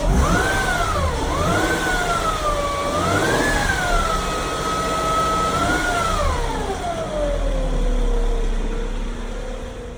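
2012 Acura MDX's 3.7-litre V6 revved up and down a few times, carrying a whine that rises and falls in pitch with the revs, then sinks back to a low steady tone as it drops to idle about seven seconds in. The whine is new, and its cause is unknown; the owner wonders whether the belt tensioner or pulley is to blame, though to him it doesn't sound much like a bearing.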